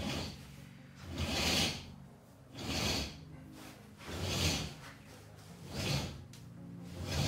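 Braided nylon rope hauled through ceiling pulleys to hoist a kayak, a rasping slide with each pull. There are about five pulls, one every second and a half or so.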